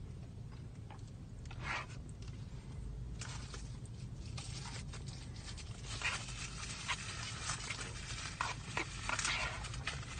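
Eating sounds: a spoon scraping and clicking in a small cup of mac and cheese, with chewing and mouth noises, over a steady low hum.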